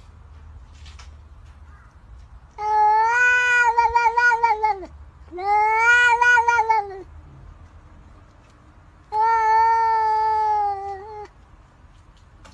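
Domestic cat meowing in three long, drawn-out calls of about two seconds each, each arching up and then down in pitch.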